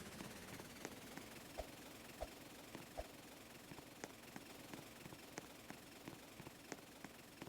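Near silence, broken by faint scattered clicks and a few soft low knocks.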